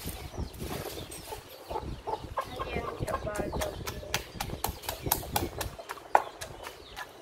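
Wooden pestle pounding in a wooden mortar, a quick series of knocks as papaya salad ingredients are crushed.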